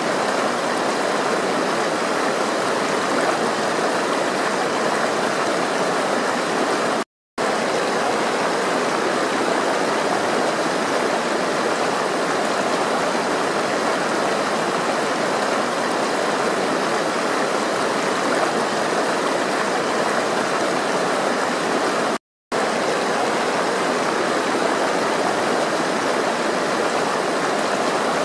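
Flowing water rushing steadily, cutting out completely for a split second twice.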